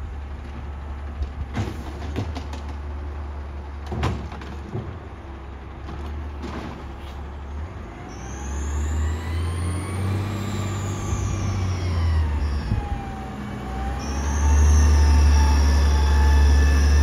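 Automated side-loader garbage truck with a natural-gas engine running, with a few sharp knocks as its arm sets a cart down. From about eight seconds in the truck pulls away, with a high whine that rises and falls. The engine gets much louder near the end as the truck passes close.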